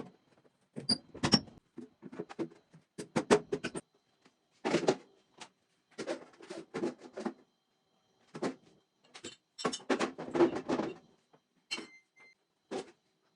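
Objects being handled and set down: a string of short knocks and clatters with silent gaps between them.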